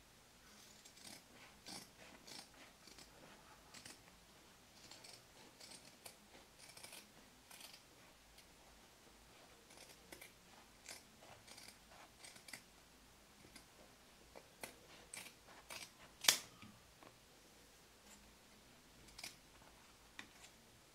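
Scissors snipping through layered fabric with padding, a faint run of short, irregular cuts as the piece is trimmed along its seam; one cut about three-quarters of the way through is much louder than the rest.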